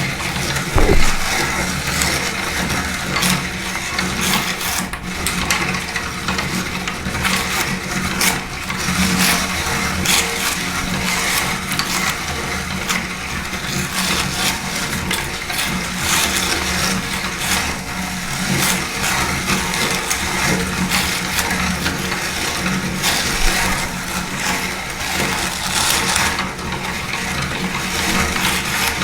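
Electric meat grinder running steadily, its motor humming while it crushes crunchy dry food, with a dense, irregular crackling throughout.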